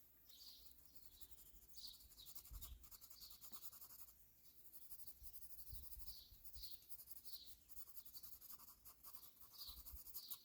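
Faint scratching of a colored pencil shading on sketchbook paper, in short repeated strokes, with faint bird chirps.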